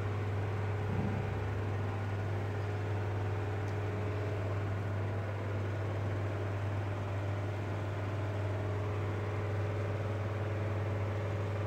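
Steady low electrical hum of aquarium equipment, with fainter steady tones above it and no sudden events.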